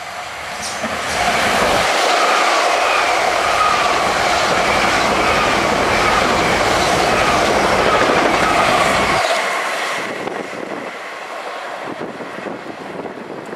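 A Gatwick Express electric multiple unit passes through a station at speed: a loud rush of wheels on rail, with a wavering whine over it. About nine seconds in, the rush drops away suddenly to a quieter, steady train sound.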